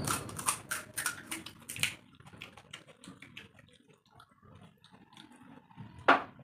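Crisp, hollow pani puri shells being cracked open with the fingers: a quick run of sharp crackles in the first two seconds, then fainter clicks, and one loud crack near the end.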